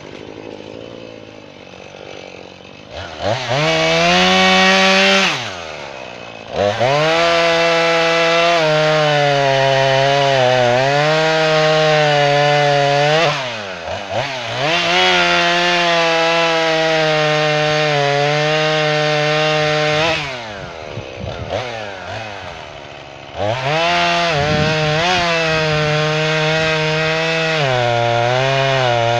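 Jonsered 2240 chainsaw idling, then revving up and cutting through red oak tops in three long cuts. The engine note sags and recovers as the chain loads up in the wood, and it drops back to idle between cuts.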